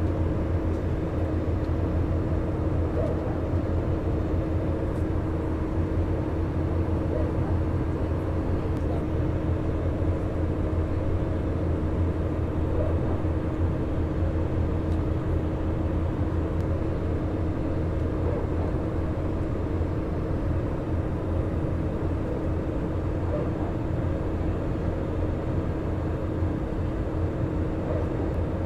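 Airbus A320 cabin noise in flight: a steady low drone of engines and airflow, with a constant humming tone above it that does not change. The title calls the flight's noise weird.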